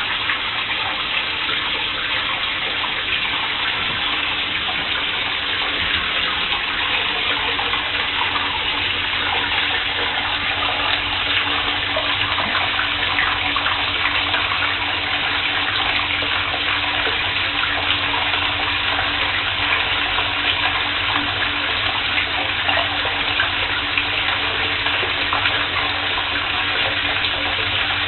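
Water running steadily from a tap into a bathtub, growing a little louder about ten seconds in.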